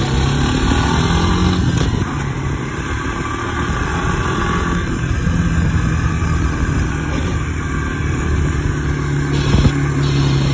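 Honda Fourtrax 300 ATV engine running steadily, its pitch shifting a little now and then.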